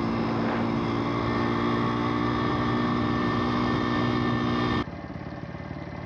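Small pit bike engine running at steady high revs while cruising. About five seconds in the sound cuts off abruptly to a quieter, lower engine sound as the bikes move slowly in traffic.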